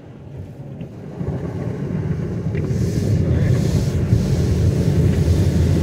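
Tunnel car wash heard from inside the car's cabin: a deep rumble of washing equipment and water working over the body, building up over the first two seconds and then holding loud and steady.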